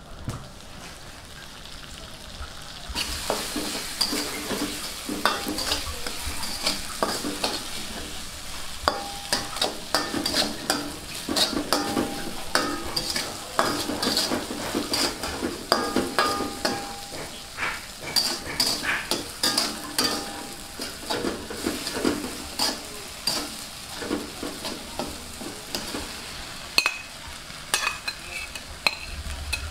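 Food frying in a hot pan, a steady sizzle that gets much louder about three seconds in, while a metal utensil stirs and scrapes the pan with many quick clinks and scrapes.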